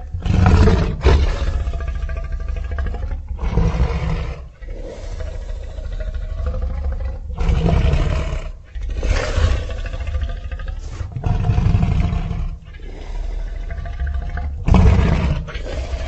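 Sound-designed Tarbosaurus roars: a string of about six deep roars, each around a second long, over a low rumble, with growling between them.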